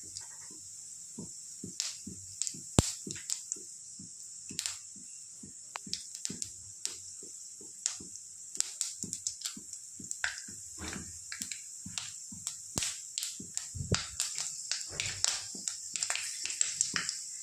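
Spice seeds crackling and popping in hot oil in an iron kadhai, the tempering (chhaunk) for dal khichdi. Irregular pops over a faint sizzle come thicker and faster in the second half.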